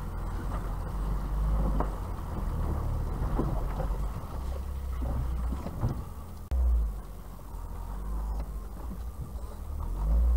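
Vauxhall Astra Mk3 driving slowly over a rough, rutted mud track, heard from inside the cabin: a low engine and road rumble with knocks from the suspension and body over bumps, and a brief louder thump about six and a half seconds in. The rumble grows louder near the end.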